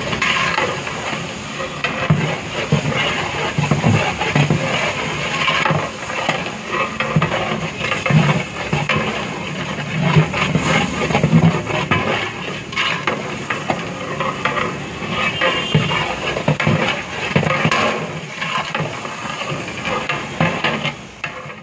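Onions frying in oil in a large metal biryani pot, a continuous sizzle, while a big flat metal ladle stirs them, scraping and knocking against the pot at an irregular pace.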